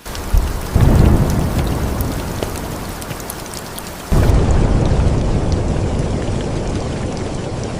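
Rain falling steadily with scattered drop ticks, and two claps of thunder, one about a second in and one about four seconds in, each rumbling and slowly fading.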